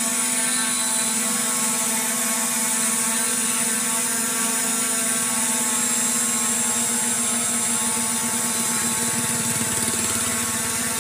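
SJRC F22S 4K Pro quadcopter drone hovering in place, its motors and propellers giving a steady, multi-toned whine. It is holding its hover on a low battery, the remote showing it in the red at around 15%.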